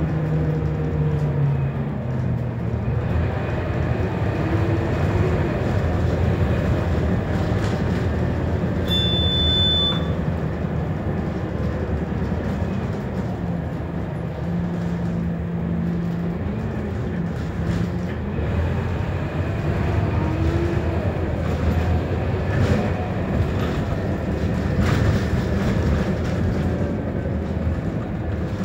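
Scania K230UB bus, heard from inside the passenger saloon: its five-cylinder diesel engine pulling the bus along, the engine note rising and dropping as the gearbox changes gear. A short high beep sounds about nine seconds in, and there are a few brief knocks near the end.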